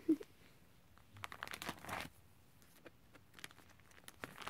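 Plastic pocket pages of a trading-card binder crinkling and rustling as a page is turned, in two short bouts: about a second in and again near the end, with a few light ticks between.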